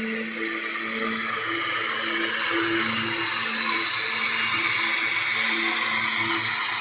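Ryobi 80-volt electric zero-turn riding mower running with its blades spinning, a steady whirring hiss with a faint whine that swells as it comes near and starts to fade near the end. It is picked up through a security camera's microphone, which makes it seem louder than it is.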